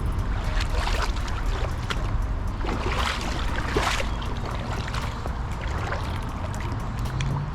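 Creek water sloshing and splashing in irregular bursts, over a steady low rumble.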